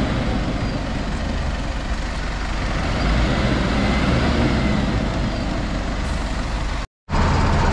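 Heavy vehicle engines running steadily under load as a pickup truck tows a bus through deep mud. The sound cuts out abruptly for a moment near the end.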